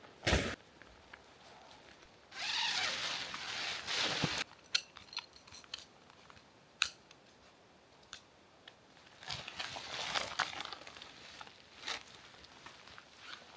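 Crunching in snow, in irregular bursts with scattered light clicks between. The longest stretch starts about two seconds in and lasts about two seconds, and another cluster comes near the end.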